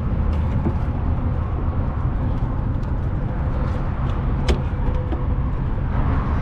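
Steady low rumble of an idling truck engine, with a few light clicks and one sharper click about four and a half seconds in.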